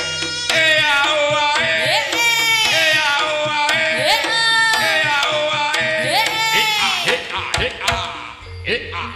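Jaranan gamelan music: a high, reedy melody with sliding notes, in the manner of a slompret shawm, over kendang drumming. Near the end the melody drops out, leaving a few separate drum strokes.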